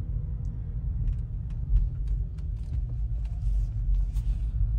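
Inside a hybrid car rolling slowly: a steady low road and tyre rumble, with scattered small ticks and clicks and a couple of brief hisses.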